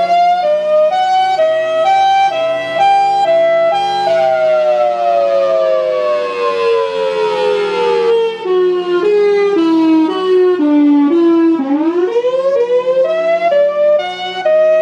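Outdoor warning sirens sounding a rising and falling cycle. The main tone wavers quickly between two close pitches, slides slowly down for about four seconds, wavers at a lower pitch, then climbs again near the end. A steady lower tone holds underneath.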